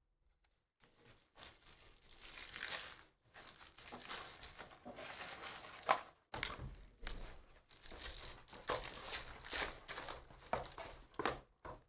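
Foil trading-card pack crinkling and tearing as it is handled and ripped open by hand. The crackles are irregular, and the sharpest comes about six seconds in.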